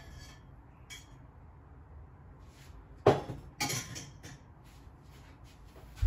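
Kitchenware clattering as drained noodles are put into a ceramic bowl: after a few quiet seconds come two sharp knocks about half a second apart, then lighter clinks.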